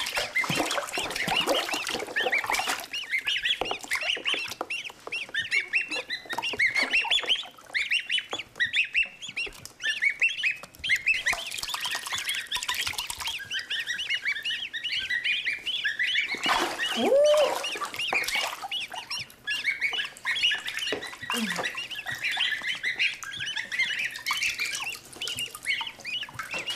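Several two-week-old goslings peeping constantly, a rapid chorus of high, short calls, with splashing as they paddle in a plastic tub of shallow water.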